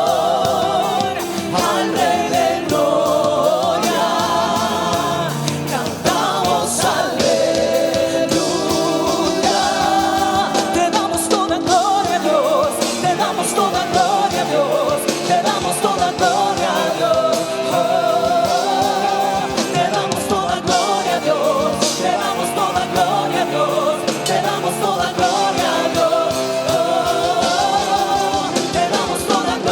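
A worship band playing, with voices singing a sustained melody over held keyboard or pad chords; the singing may be wordless or in words the transcript missed.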